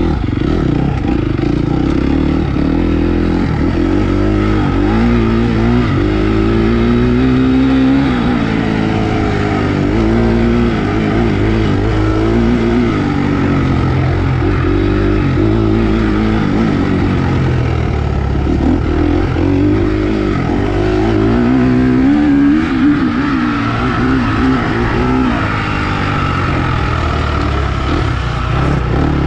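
Motocross dirt bike engine revving hard and easing off again and again as it is ridden, heard from on the bike. The pitch rises and falls every couple of seconds as the throttle is worked through the track's turns and straights.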